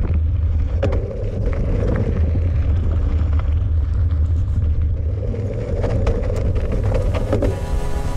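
Mountain bike rolling fast over rocky singletrack, heard from a camera mounted low on the fork: a steady low rumble of tyres and wind on the microphone, with scattered clicks and knocks from stones and the bike rattling.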